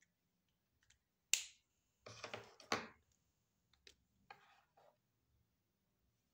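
A sharp click, then about a second of rustling and scraping, then a few lighter clicks and taps: a highlighter marker being picked up and handled over paper.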